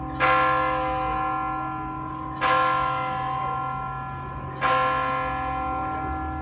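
The hour bell of Croydon Clock Tower striking twelve. Three strokes on the same bell come about two seconds apart, each ringing on and fading until the next.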